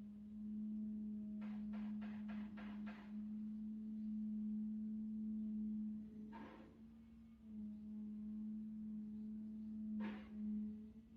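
A steady low hum, with a quick run of clicks or taps about one and a half seconds in and short scuffs around six and ten seconds in.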